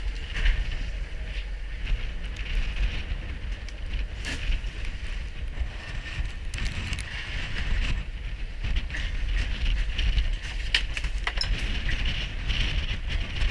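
Wind buffeting the microphone in a steady, uneven rumble, with a hiss of wind and choppy water behind it. A few short clicks and knocks from gear being handled come through.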